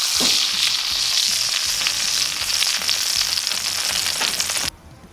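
Steak sizzling in hot clarified butter in a skillet, a dense steady crackle that cuts off suddenly near the end.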